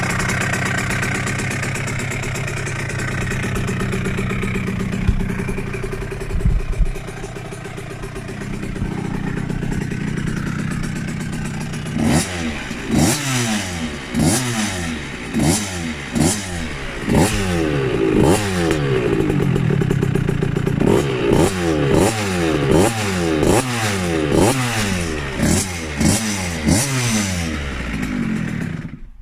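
KTM 65 SX's single-cylinder two-stroke engine idling steadily, then revved in quick sharp throttle blips about once a second for the second half, each rising and dropping back. The sound cuts off abruptly near the end. The engine has been rebuilt and is running cleanly.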